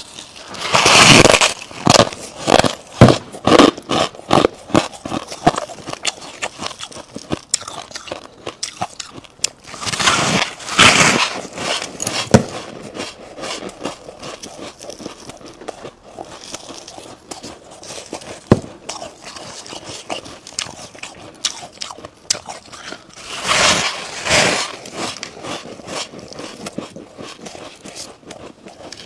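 Freezer frost being bitten and chewed. There are big crunching bites about a second in, around ten seconds and just before twenty-four seconds. Each is followed by a run of crisp, squeaky crunches as the mouthful is chewed.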